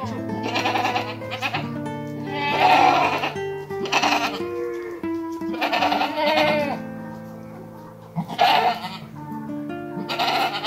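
Goats bleating repeatedly, about six calls spaced a second or two apart, over background music with long held notes.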